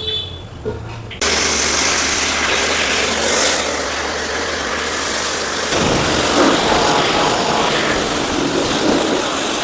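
High-pressure car washing machine running and spraying water, a steady hiss over a low pump hum, starting suddenly about a second in.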